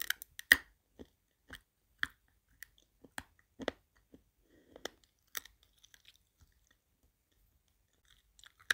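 Dog crunching dry kibble at a stainless steel bowl: irregular sharp crunches about one or two a second, then a pause of about two seconds before a few more near the end.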